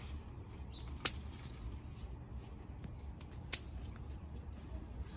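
Scissors snipping through jute plant stems: two sharp snips, about a second in and again about three and a half seconds in, with a few fainter clicks between them.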